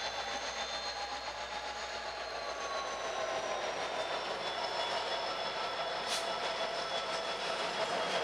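Norfolk Southern freight cars rolling past on the track: a steady run of wheels on rail, with several high tones from the wheels that hold and slowly slide in pitch, and a short sharp click about six seconds in.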